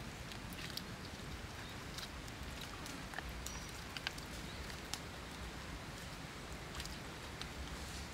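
A cord being wound and pulled tight around a raw pork leg gives small irregular clicks and rustles over a steady outdoor hiss.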